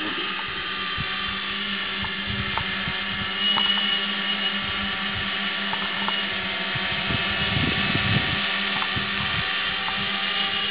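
Multirotor camera drone hovering, its electric motors and propellers making a steady whine of several pitches held together.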